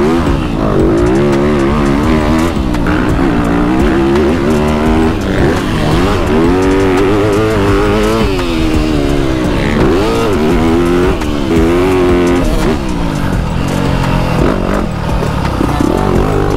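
Motocross bike engine revving up and down as it is ridden, the pitch rising and falling every second or two with throttle and gear changes.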